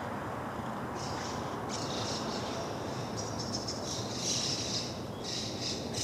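Bull-headed shrike calling: several short bursts of rapid, high chattering notes, starting about a second in, over a steady background hiss.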